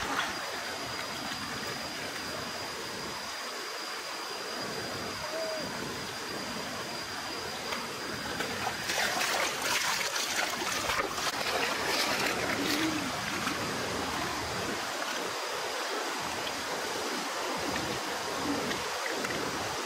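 Shallow stream running over rocks. From about nine seconds in, a few seconds of splashing as a fish thrashes in the water while being caught by hand. A thin steady high tone sits faintly in the background.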